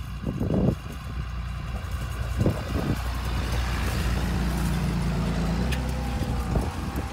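Tractor engine running steadily with a low drone, with a couple of knocks and rattles from the machinery; the drone grows stronger about four seconds in and eases off shortly before the end.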